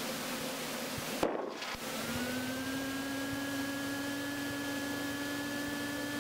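Cessna 172 cockpit noise while taxiing: a steady hiss, broken about a second in by a click and a brief dropout, after which a steady hum with a thin whine that rises slightly and then holds.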